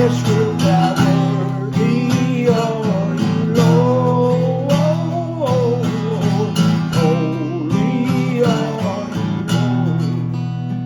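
Instrumental passage near the end of a Christian worship song: strummed acoustic guitar chords with a wavering lead melody line on top, the music easing down in volume over the last few seconds.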